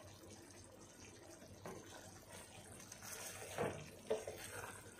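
Wooden spoon stirring a pot of hot, simmering chicken curry: faint liquid sloshing with a few soft knocks in the second half.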